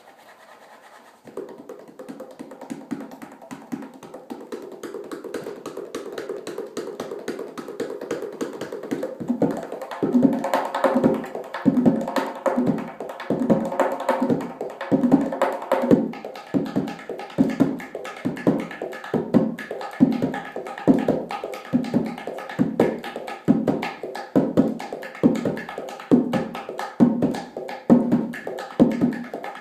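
Tonbak (Persian goblet drum) played solo. About a second in, a soft, fast roll of finger taps starts and swells. From about ten seconds in, deep strokes fall in a steady beat about once a second, with quick finger taps between them.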